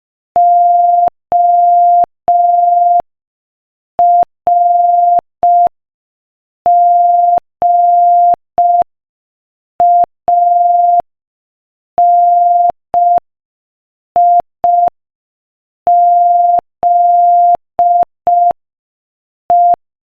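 Morse code sent at 5 words per minute as a single steady beep of about 700 Hz, keyed in long dahs and short dits with clear gaps between letters. The letters spell out "ORGANIZE".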